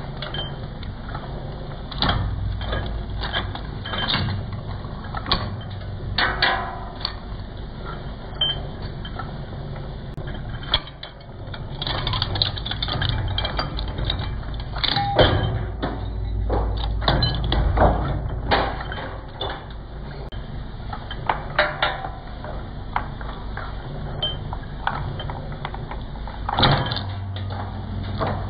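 Twin-shaft shredder running with a steady low hum while its cutter discs chew through a multi-core electrical cable, giving irregular crunching and snapping as the cable is pulled between the blades.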